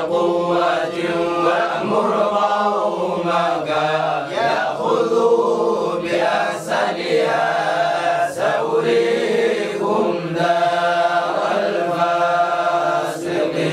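Several men reciting the Quran together in unison: a slow, melodic group chant with long held notes.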